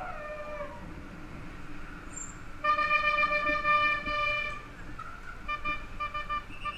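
A horn sounds one long steady note of about two seconds, then a quick string of short toots, several a second.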